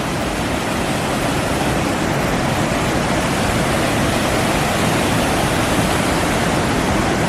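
Rushing water from a rocky mountain stream and waterfall, a loud, steady, unbroken rush.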